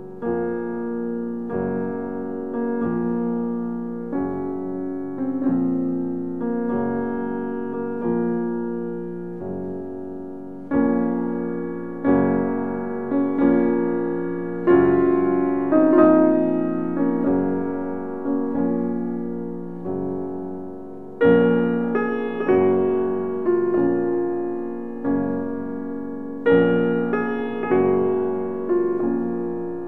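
Solo piano music: notes and chords struck one after another and left to fade.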